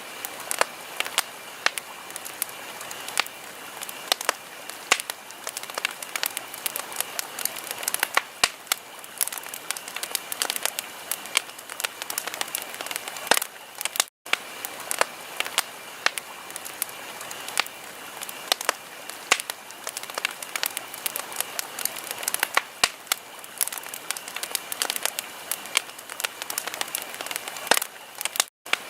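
Wood fire crackling, with frequent irregular sharp pops and snaps over a steady hiss. The sound cuts out for an instant about halfway through and again near the end.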